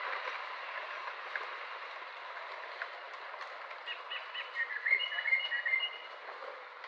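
A quick run of short, high chirping animal calls about four seconds in, over a steady outdoor background hiss.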